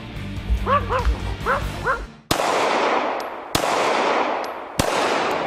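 A dog barks four short times, then three gunshots ring out about a second and a quarter apart, each trailing off in a long echoing decay.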